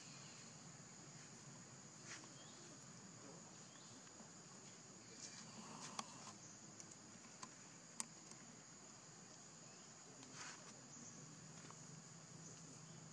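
Faint, steady high-pitched insect drone, with a few soft rustles and two sharp clicks near the middle.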